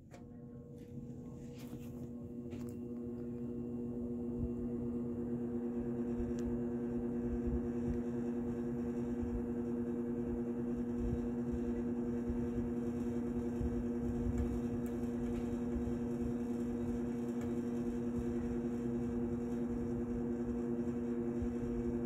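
Arvin model 7414 box fan switched on at high speed: a steady electric motor hum with the rush of the blades. It grows gradually louder over the first several seconds as the fan slowly comes up to speed, then runs steadily. The slow, hesitant start comes from a motor that needs oiling.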